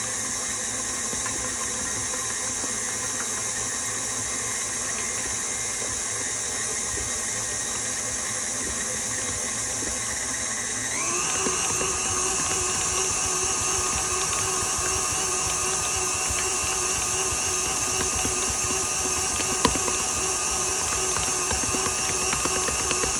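KitchenAid Artisan stand mixer motor running steadily as its dough hook kneads bread dough. About eleven seconds in, its whine rises in pitch and gets louder as the mixer speeds up, then holds. A single sharp knock comes about twenty seconds in.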